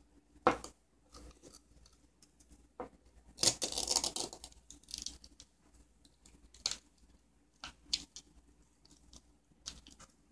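A small loudspeaker being taken apart by hand with a tool: scattered clicks and scrapes of the tool against the speaker's frame and parts, a sharp click about half a second in and a longer tearing scrape around the middle.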